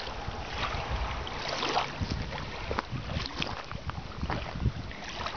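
Wind buffeting the camera's microphone in uneven low rumbling gusts, with scattered brief rustles over the top.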